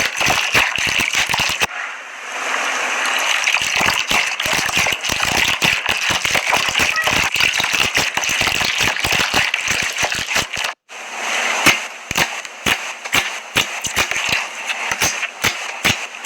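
Slime being squished and worked, giving a dense run of crackles and small pops. Near eleven seconds in, the sound breaks off for a moment and similar crackling resumes, thinner in the low end.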